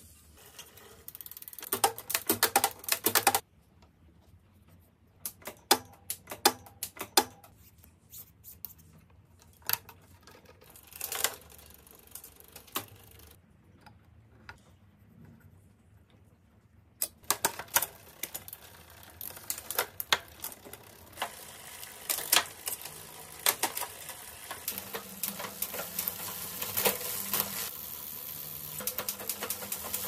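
Clicks and taps of bicycle parts and hand tools being worked during a road bike build, coming in irregular clusters. About halfway through, a steady hiss starts under the clicks and grows louder.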